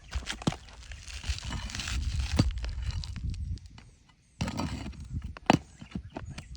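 Asphalt shingle being pried and unsealed with a roof-snake shingle removal bar: a rough scraping and tearing of the sealed shingle for about three and a half seconds, then, after a short pause, a run of sharp knocks and clicks.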